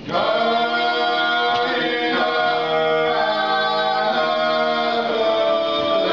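Male vocal trio singing a Georgian polyphonic song a cappella, three voices entering together at the start and moving between long held chords.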